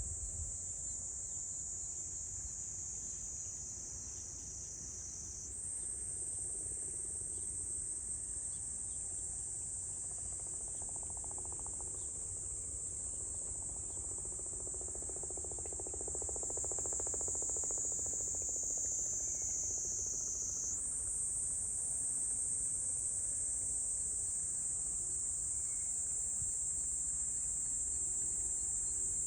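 Chorus of insects, crickets or cicadas, a steady high shrill drone that shifts abruptly in pitch and level twice, with a low rumble of wind or handling noise beneath.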